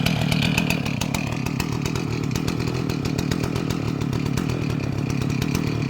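Gas chainsaw mounted in a chainsaw mill, running steadily at high speed with an even, rapid pulse.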